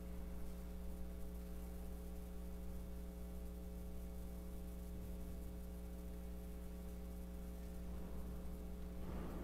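Steady electrical hum, a low drone with several fixed tones above it. About nine seconds in there is a brief faint rustle.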